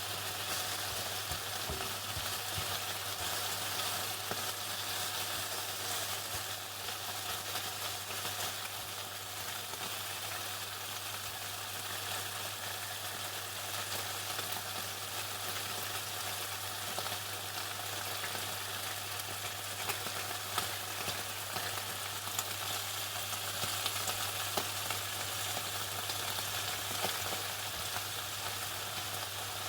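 Chicken frying in hot oil: a steady, dense crackling sizzle with scattered louder pops, over a low steady hum.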